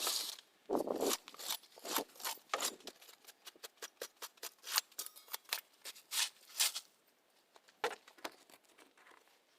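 Weeds and plant material being pulled and handled: a quick, irregular run of short crackles, snaps and rips that thins out to a few scattered ones near the end.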